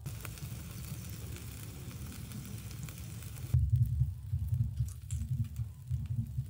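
Chicken wings sizzling and crackling on a wire grill over hot charcoal. About three and a half seconds in, the sizzle drops away suddenly and a low rumble takes over.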